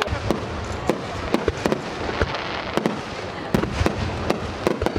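Aerial firework shells bursting overhead: an irregular run of sharp bangs, about three a second.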